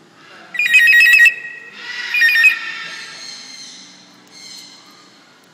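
African grey parrot mimicking a ringing telephone: two loud, rapidly trilling rings, the second trailing away.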